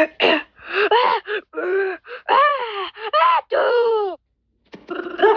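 A high-pitched cartoon character voice gasping 'ah... ah... ah...' over and over, each gasp rising and then falling in pitch: the build-up to a sneeze. It breaks off into a short silence about four seconds in, and a loud burst of voice comes near the end.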